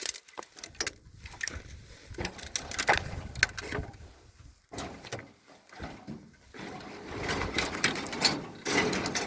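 Footsteps crunching and rustling over rough ground, with scattered irregular clicks and scrapes.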